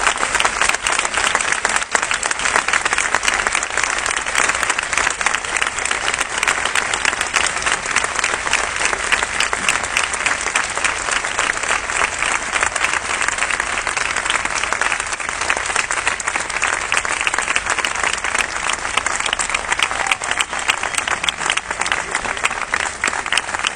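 Large crowd applauding steadily, many hands clapping at once.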